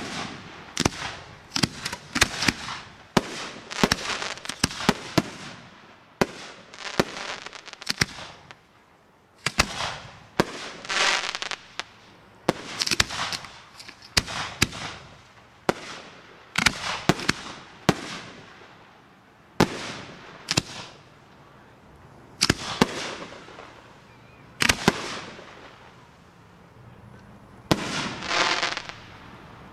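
Aerial fireworks bursting overhead: loud sharp reports in quick irregular clusters with short lulls between, a few trailing off over about a second.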